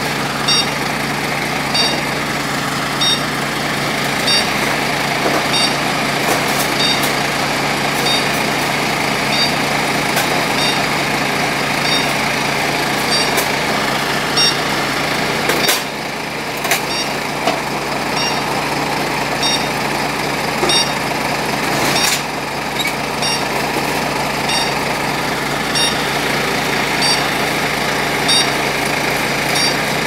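Parked fire engines' engines idling steadily, with a faint high chirp repeating about once a second.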